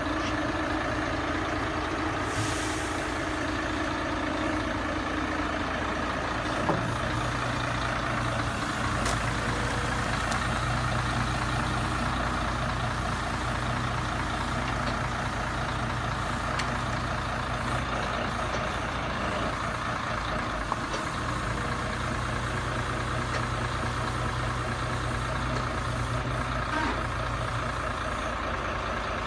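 Mercedes-Benz Actros 2541 truck's V6 diesel engine running steadily while it powers the hydraulics of the Terex 145.2 loader crane as the crane moves its grab. There is a brief hiss a couple of seconds in and a small click or two.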